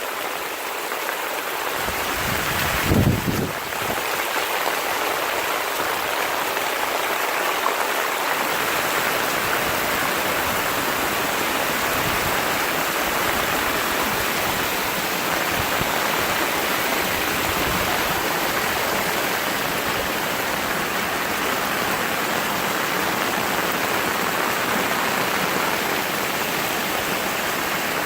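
Heavy rain falling in a steady, dense hiss, with a brief low thump about three seconds in.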